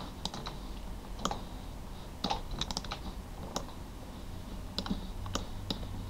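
Irregular, sparse clicks from a computer mouse and keyboard, about a dozen clicks spread over the few seconds, over a faint low hum.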